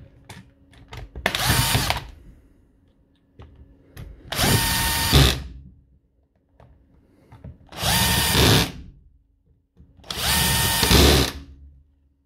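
Power drill driving the case screws back into a battery pack, run in four short bursts, each spinning up to speed and holding for about a second. Light clicks of handling between the bursts.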